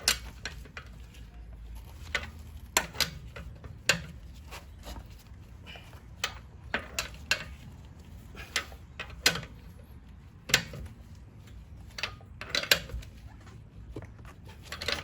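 Scattered sharp metallic clicks and clinks, irregularly spaced, from a 17 mm socket wrench working on a car wheel's lug bolts as they are tightened.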